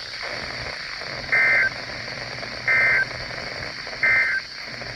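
Emergency Alert System end-of-message data bursts on NOAA Weather Radio: three short, loud two-tone digital squawks about a second and a half apart over steady radio hiss, closing the alert message.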